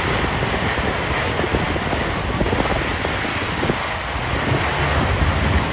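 Steady, dense noise of a street procession crowd on the move, muddied by wind buffeting the phone's microphone.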